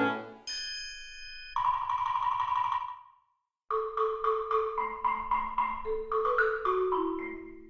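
Background music: a high chime, a held tone, a short break about three seconds in, then a run of quick struck notes.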